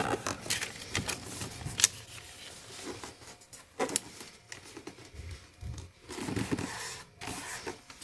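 Square of origami paper being folded and creased by hand: dry rustling and sliding, with scattered sharp crisp ticks as the paper is pressed flat.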